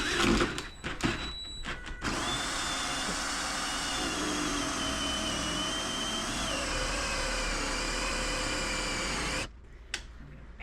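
Drill spinning a small hole saw into wood to bore a lock bolt hole. A few short starts come first, then a steady run of about seven seconds with a high whine, which stops shortly before the end.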